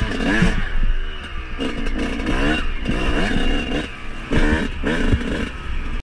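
Yamaha YZ125 two-stroke single-cylinder dirt bike engine under riding load, its revs rising and falling repeatedly with the throttle, about half a dozen quick climbs in pitch.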